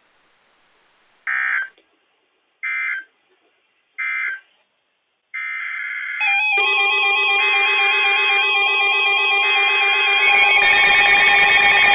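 NOAA Weather Radio emergency alert data: three short screeching end-of-message bursts, then about five seconds in the start of a new alert's data header, followed by weather alert radios sounding their alarms together as layered beeping and stepping electronic tones, the sign that a new warning has been issued.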